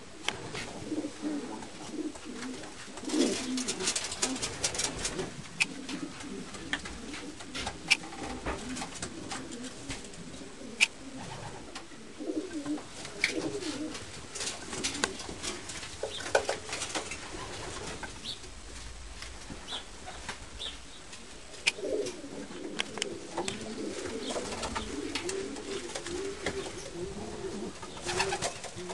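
A flock of racing pigeons cooing in an enclosed loft, many birds overlapping, with scattered sharp clicks among them.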